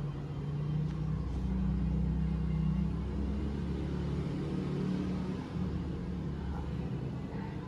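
A low mechanical rumble with a steady hum, swelling about a second in and easing off after about five seconds.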